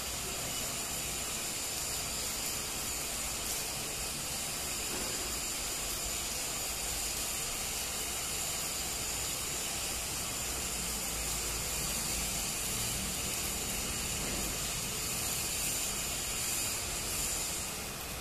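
Electric arc welding: the welding arc gives a steady hiss, with a faint high steady whine beneath it.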